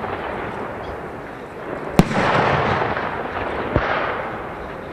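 Aerial firework shells bursting: one sharp bang about two seconds in and a smaller one just before four seconds, each followed by a long fading tail of noise.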